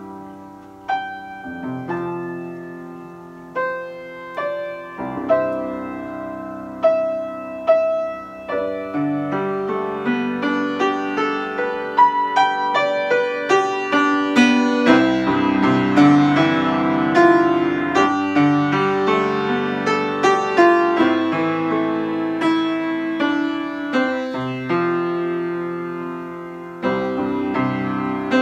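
Grand piano played solo in a slow improvisation: spaced single notes and chords that ring out at first, growing fuller and louder from about nine seconds in.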